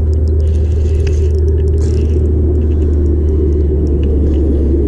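Boat motor running steadily with a deep, even hum.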